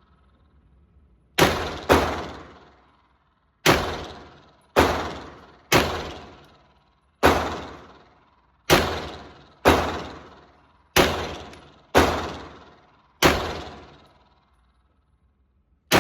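Glock 17L 9mm pistol fired in a slow, uneven string of about a dozen single shots, roughly a second apart, starting about a second and a half in; each shot rings out briefly.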